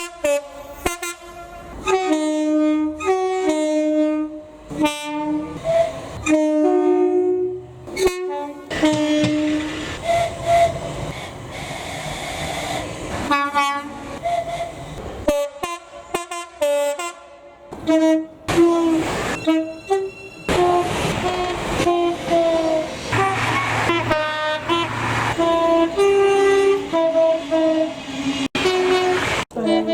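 Train horns sounding a long run of short blasts, switching back and forth between a high and a low note. Partway through, a passing train's running noise comes up under the horn notes.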